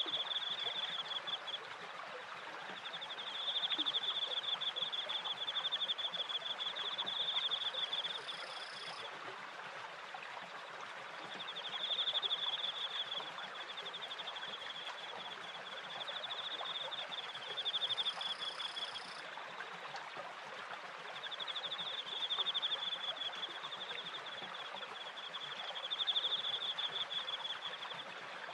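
Crickets trilling in rapid pulsed phrases of one to three seconds with short pauses, over the steady splashing of water from a turning wooden waterwheel and its stream.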